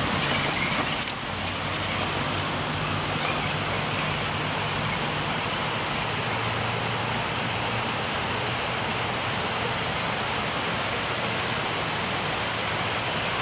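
Steady rush of flowing river water, with a few faint clicks in the first few seconds.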